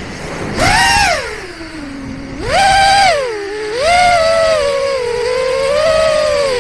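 Motor whine of a 4-inch FPV quadcopter (FPV Cycle 2203 3450kv motors spinning Gemfan 4052 props), heard from a camera mounted on the quad. The pitch surges up about half a second in, sags low around two seconds, punches up again, dips and climbs once more about four seconds in, then holds steadier as the throttle is worked.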